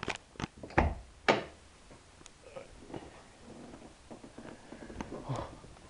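Fiat Seicento passenger door being opened and handled: several sharp clicks and knocks in the first second and a half, then quieter rustling and a soft thump about five seconds in.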